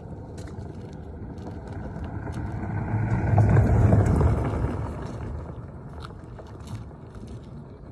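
A car passes close by on a gravel road: engine and tyres on the gravel grow louder to a peak about halfway through, then fade as it drives away.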